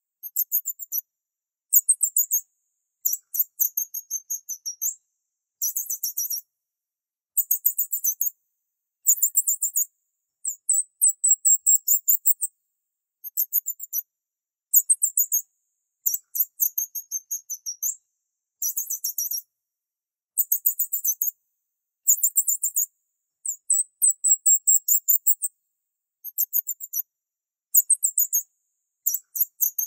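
High-pitched bird-like chirping: short trills of rapid pulses, each pulse a quick downward slide, repeating roughly once a second with brief silent gaps between them. There is no low cooing in it.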